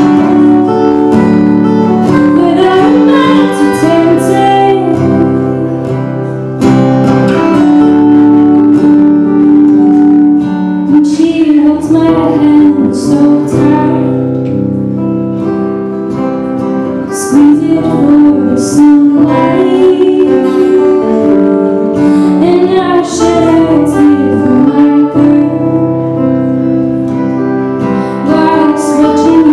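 A live song on two acoustic guitars, strummed and plucked, with singing over them.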